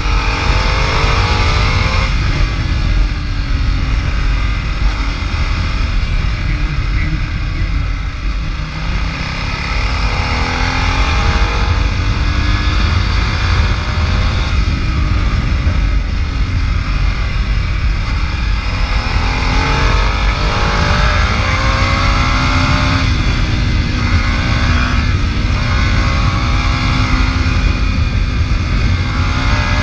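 Ducati Multistrada's V-twin engine pulling hard under acceleration, its pitch rising several times and dropping back between pulls. Heavy wind rumble on the microphone lies underneath throughout.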